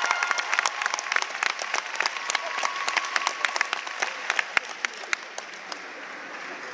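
Audience in an ice rink applauding, the clapping thinning out and fading to scattered claps toward the end.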